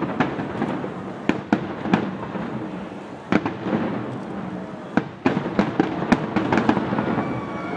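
Aerial firework shells bursting in quick, irregular succession: sharp bangs over a continuous rumble, coming thickest in the second half.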